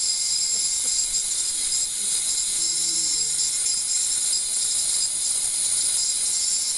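Ultrasonic unit with its waveguide immersed in water running steadily, giving a high-pitched sizzling hiss with several high tones held throughout. This is the sound of cavitation whipping the wax and water into an emulsion.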